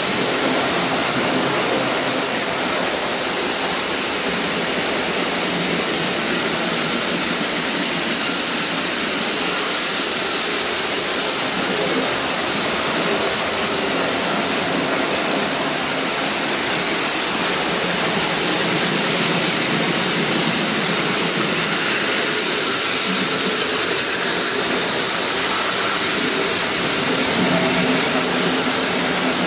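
Several Märklin H0 model trains running at once on a large layout: a steady, even whirring rush of their small electric motors and metal wheels on the track.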